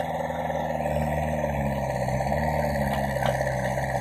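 Diesel engine of a JCB 3DX backhoe loader running under hydraulic load as its backhoe dumps soil into a tractor trolley; the engine note dips and rises a few times as the arm works.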